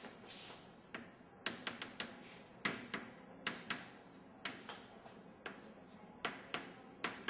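Chalk writing on a blackboard: a string of sharp, irregular taps, some in quick clusters, as the chalk strikes and drags across the board.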